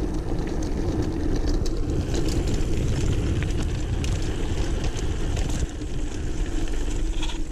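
A mountain bike rolling fast down a dirt singletrack, with steady wind buffeting on the microphone and tyre noise. Scattered clicks and rattles come from the bike over the bumps.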